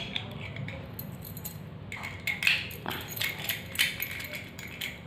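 Metal padlock and its keys being handled: scattered light metallic clicks and clinks, starting about two seconds in.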